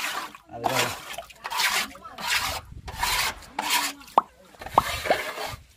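Rhythmic scrubbing strokes on the wall of a water tank, about eight strokes, a little under a second apart, working off algae. A few short squeaks come near the end.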